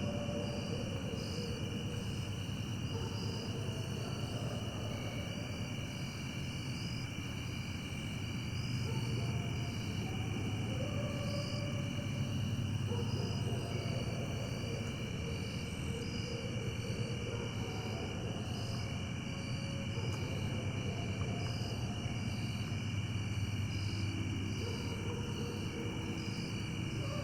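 Coyotes howling, with long notes held nearly level in pitch coming and going, over steady insect chirring and a constant low rumble.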